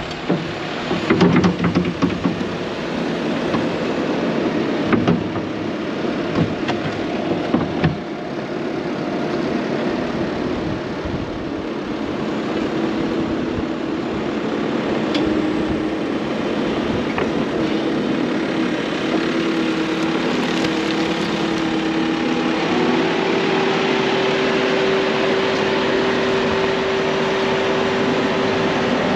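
An engine running steadily, its hum stepping up in pitch about 23 seconds in, with knocks and rattles during the first eight seconds.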